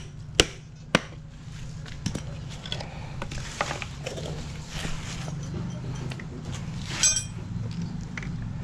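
Metal tools and engine parts knocking and clinking as they are handled, with a few sharp knocks in the first second or so and a ringing metallic clink about seven seconds in, over a steady low hum.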